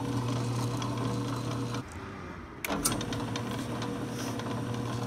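Drill press motor running steadily as its bit bores holes in PVC pipe held in a vise. The sound drops for under a second about two seconds in, then starts again with a few sharp clicks.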